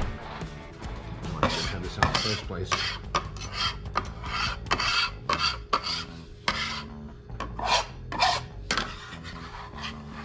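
Metal bench scraper scraping across an end-grain wooden cutting board, pushing jalapeño seeds and scraps together in a quick series of short strokes that stop near the end.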